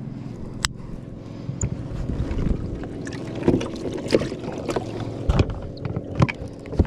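Steady motor hum aboard a bass boat, with scattered knocks and clicks from handling on deck.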